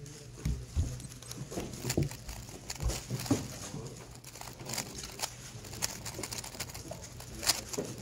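A 3x3 speedcube being turned in a solve: a run of irregular sharp plastic clicks and clacks as its layers snap round.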